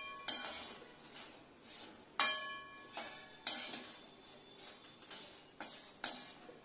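Perforated steel skimmer scraping and clanking against a kadai while stirring frying urad dal vadiyalu. Two sharp metallic clanks with a brief ring, about a third of a second and two seconds in, then softer scrapes.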